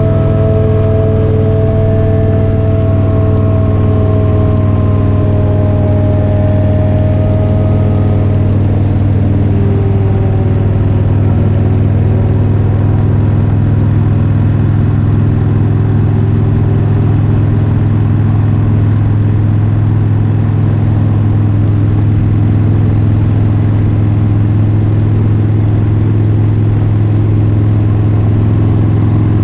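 Motorcycle engine running at a steady cruise, with a loud rush of wind over it. A higher whine slides slowly down in pitch over the first third, then the engine holds an even drone.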